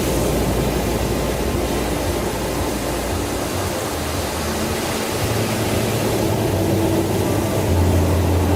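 Background music: sustained low bass notes that change every few seconds, over a steady hiss.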